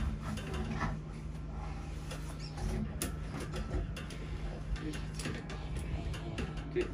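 Pipe inspection camera cable being fed by hand into a kitchen drain: scattered light clicks and rubbing over a steady low hum.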